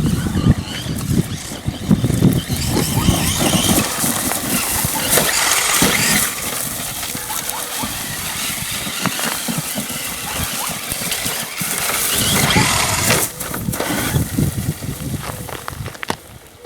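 Large-scale 1/5 electric RC monster truck with a brushless motor driving, its sound swelling and fading as it speeds up and slows, dropping away near the end.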